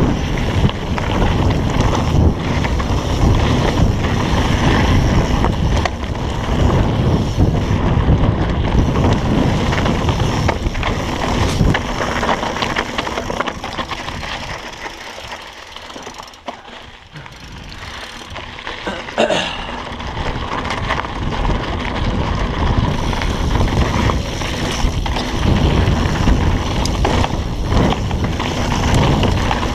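Wind rushing over the camera microphone, with a mountain bike's tyres and frame rattling along a dirt trail. It drops away for a few seconds around the middle as the bike slows, then builds again.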